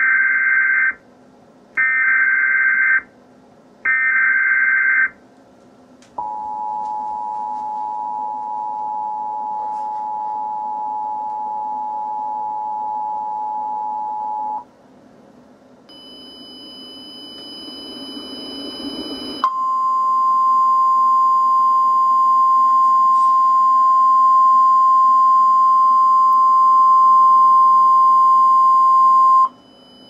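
Emergency Alert System tornado-warning tones: three one-second bursts of the SAME data header, then the two-tone attention signal held steady for about eight seconds. After a few seconds of rising hiss comes a single steady weather-radio warning alarm tone for about ten seconds, which cuts off suddenly.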